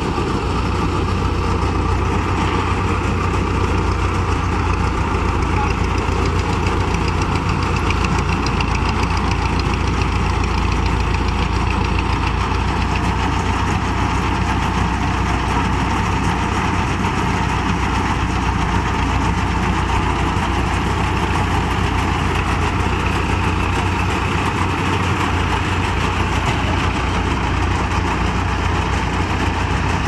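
Powertrac tractor's diesel engine running steadily under load while it drives a tractor-mounted mini combine harvester cutting and threshing wheat, the engine hum and the machine's threshing drum and cutter bar making one constant loud drone.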